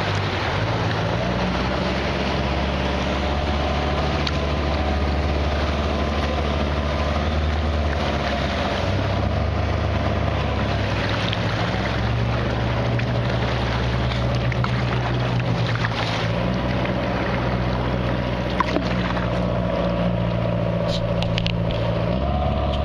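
Wind buffeting the microphone of a camera mounted on a kayak's bow, over water washing past the hull, with the steady engine drone of a passing motorboat.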